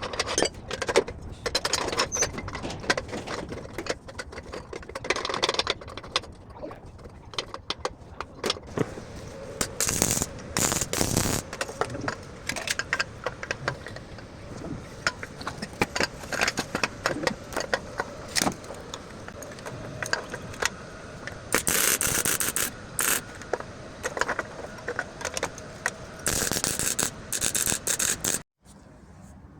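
Metalwork on a car's catalytic converter housing: a run of clicks, knocks and scraping, broken by several harsh hissing bursts about a second long, and cutting off suddenly near the end.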